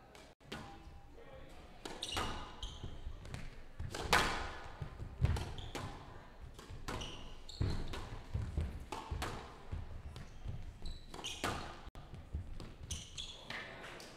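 Squash rally: the ball cracks off the rackets and the court walls in a quick, irregular run of impacts, with short high shoe squeaks on the court floor.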